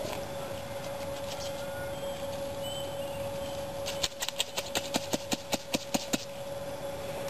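Digging and scraping in dry soil and leaf litter: soft rustling at first, then from about four seconds in a quick run of sharp clicks and scrapes, about four or five a second. A steady hum runs underneath.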